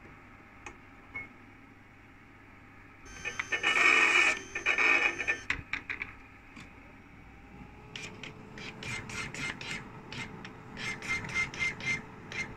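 Bottle label applicator running for about two seconds, its rollers turning a glass bottle while a label is wrapped on, with a steady whirring tone. Later comes a run of short, even whirring strokes, two or three a second, from the Epson ColorWorks C3500 inkjet label printer printing labels.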